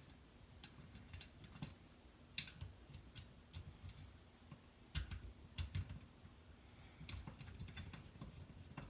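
Faint, irregular clicks and light knocks of hand tools working screws out of a chainsaw's casing during disassembly.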